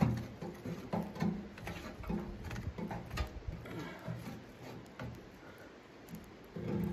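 A stick poking and scraping in the firebox of a small sheet-steel wood stove, with irregular clicks and knocks of wood against metal and coals.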